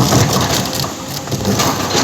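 Loud crunching and crackling of material being crushed and broken by an excavator, with many small cracks and snaps.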